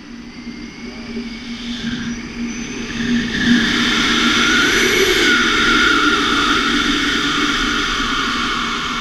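Airflow rushing over the action camera's microphone on a tandem paraglider in flight, with a steady low hum. It builds over the first three seconds as the glider banks into a steep turn and speeds up, stays strong through the middle, then eases slightly.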